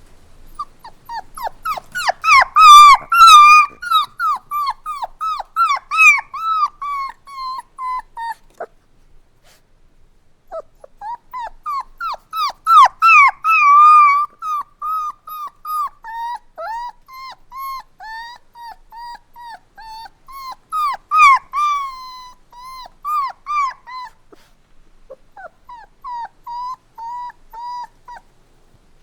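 Puppy crying: rapid high-pitched whimpers and yelps, several a second, in three bouts with short pauses between, loudest about two seconds in and again in the middle.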